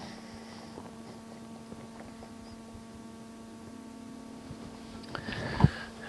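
Steady low electrical hum, with a single soft thump about five and a half seconds in.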